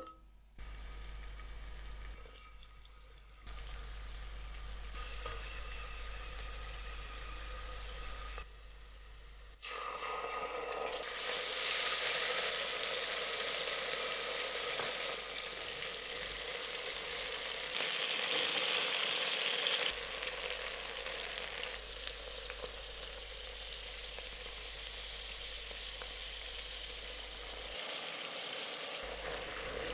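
Hot oil sizzling in a stainless steel pot as ginger slices and a red paste fry in it, a steady hiss that grows louder about ten seconds in.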